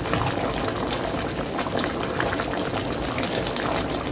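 Curry cow foot stew bubbling steadily in a metal pot on the stove, a continuous fine crackle of small popping bubbles.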